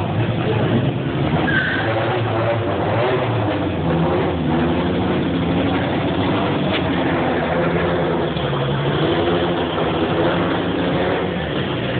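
Car engine running loudly at low speed, its note rising and falling with light throttle.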